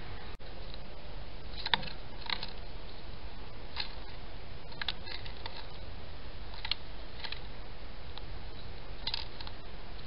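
A European robin at a garden feeder pecking at seed in a dish, giving light, sharp clicks and taps every second or so at irregular intervals, over a steady low background rumble.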